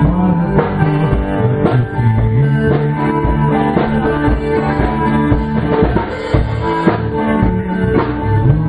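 A live band jamming: amplified guitars playing over a drum kit, with drum hits landing at a steady beat.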